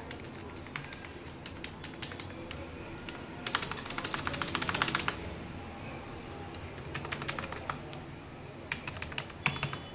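Mechanical keyboard being typed on: scattered key clicks, then a fast flurry of keystrokes about three and a half seconds in that lasts about a second and a half and is the loudest part, and shorter runs of typing near the end.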